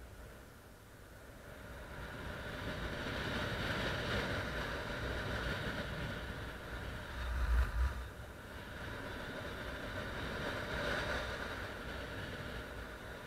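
Wind rushing over the camera's microphone during paraglider flight, a steady hiss with a louder low buffet about seven and a half seconds in.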